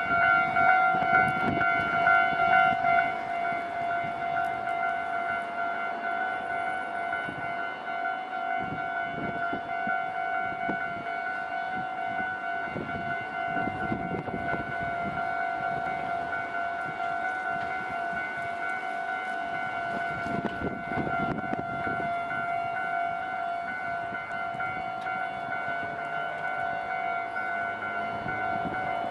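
Japanese railway level-crossing warning bell on the JR Kisei Main Line, ringing continuously in a steady repeating electronic tone that is louder for the first three seconds. Low rumbling comes and goes beneath it.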